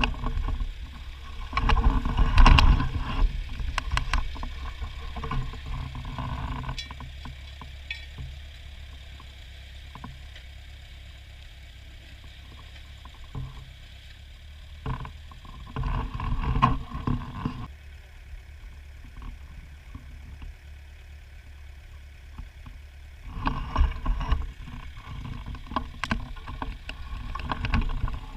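Ford farm tractor engine running steadily while ploughing sods, with louder rough bursts a few seconds long near the start, about halfway, and near the end.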